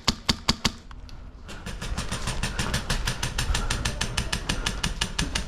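Airsoft electric rifle firing: four quick single shots, then about a second and a half in a long full-auto burst of about ten rounds a second, with the whir of the gun's gearbox underneath, stopping just before the end.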